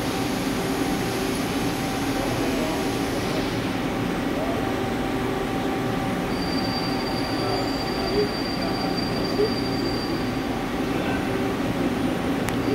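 Hyundai Wia L300MSC CNC turning center running, a steady mechanical hum with several held tones. A hiss fades out about three and a half seconds in, and a thin high whine comes in about six seconds in and stops near ten seconds. Two short knocks come around eight and nine seconds in.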